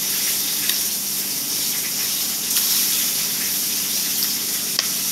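Loud, steady rushing hiss of background noise with a low hum underneath, and one faint click near the end.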